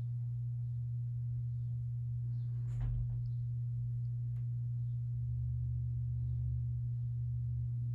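Litex Ellington ceiling fan running on medium speed, its cheap spinner motor giving off a steady low electrical hum.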